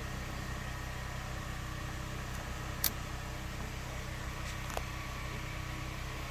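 Steady low mechanical hum, like a motor or engine running, with a sharp click about three seconds in and a fainter click near five seconds.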